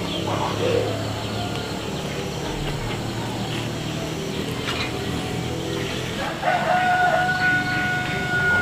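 A rooster crowing once near the end, a long call held on one note for about two seconds.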